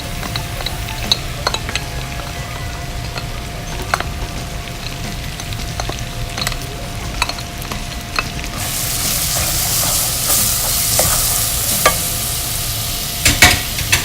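Chopped garlic sautéing in melted butter in a pan, sizzling, with a utensil clicking against the pan as it is stirred. A little over halfway through the sizzle suddenly becomes louder and hissier. Near the end there are a few louder knocks against the pan.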